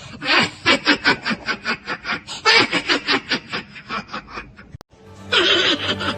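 A person laughing: a long run of quick 'ha' pulses, about five a second, trailing off, then a short fresh burst of laughter about five seconds in.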